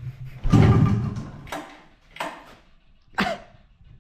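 A hard pull on the recoil starter cord of a Polaris Indy 500 snowmobile's two-stroke engine, its muffler off, turning the engine over once about half a second in. It does not start: a few softer knocks follow, with no steady running.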